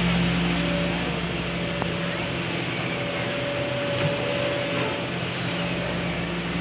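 Kobelco SK140LC crawler excavator's diesel engine running steadily under working load, with a thin steady whine from its hydraulics as the arm swings; the low engine hum eases a little midway.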